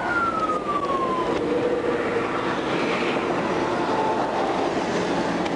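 Police siren wailing, its pitch falling over the first second and a half, over a steady rushing noise.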